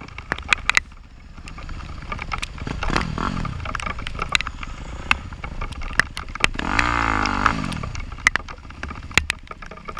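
Off-road motorcycle engine running, revving up and back down briefly about three seconds in and again more strongly around seven seconds in, with many sharp ticks scattered throughout.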